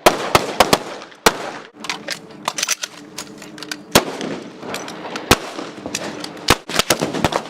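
Several handguns firing in an irregular string of loud, sharp shots, some in quick clusters of two or three.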